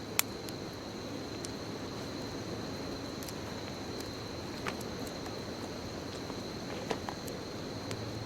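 Wood bonfire burning, with a steady hiss and a few sharp crackling pops. The loudest pop comes just after the start, and smaller ones come near five, seven and eight seconds in. A continuous high insect trill runs underneath.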